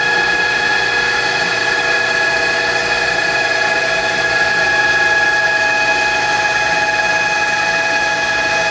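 Li Chou automatic facing and centre-drilling machine running: a steady, even whine made of several constant tones from its spindle heads as they work the ends of a clamped steel bar.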